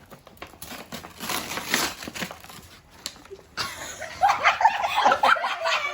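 Gift wrapping paper being torn and crumpled. About three and a half seconds in, a child's high-pitched voice breaks in.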